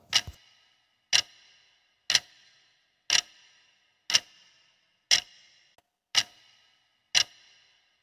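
Clock-tick sound effect marking a countdown timer: one sharp tick each second, eight in all, each with a short ringing tail.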